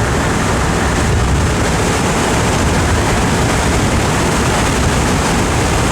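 Steady, loud rush of wind noise buffeting the microphone.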